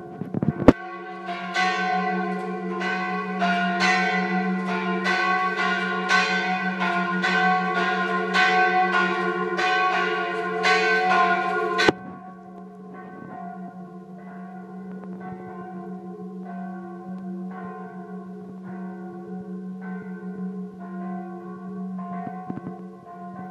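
Church bells ringing, struck about twice a second with long overlapping ringing tones. About twelve seconds in, the sound drops suddenly to a quieter stretch of the same ringing.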